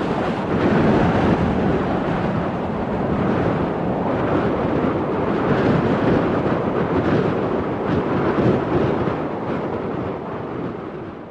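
Strong wind blowing in a loud, sustained gust with small swells, fading away near the end.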